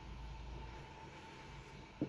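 Faint steady hiss of rain, with a low rumble swelling and fading over the first second and a half and a thin steady tone underneath. A single sharp knock comes right at the end.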